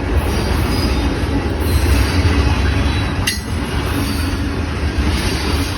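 Freight train of tanker cars rolling past close by: a steady heavy rumble of steel wheels on the rails, with faint high wheel squeal and a sharp clack about three seconds in.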